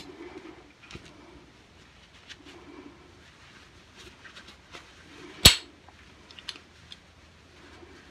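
Quiet handling and wiping of a small handgun frame with a cloth, with scattered faint ticks and one sharp click about five and a half seconds in. A soft, low cooing, like a dove, comes and goes in the background.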